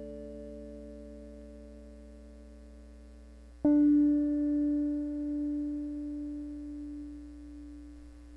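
Three-string cigar box guitar tuned D-A-D, heard directly from its magnetic pickup: a note left ringing and fading, then a new one plucked about three and a half seconds in that rings out and slowly dies away. A steady electrical hum sits underneath.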